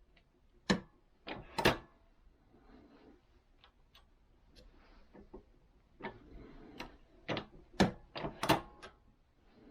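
Sharp clicks and clunks of metal reloading equipment being worked by hand, a few about a second in and a busier run of them in the last few seconds, with a quiet gap between.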